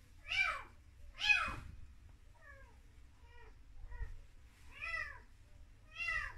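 Domestic cat meowing over and over: about seven short meows, each rising then falling in pitch. The second meow is the loudest, and the ones in the middle are softer.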